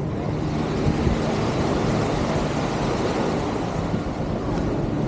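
Steady wash of surf and wind noise on the microphone, with a low, even motor-like hum underneath.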